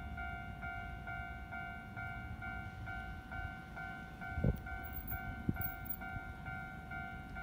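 Level-crossing alarm ringing, an electronic ding repeating about twice a second, over a low rumble. Two short thumps come about halfway through, a second apart.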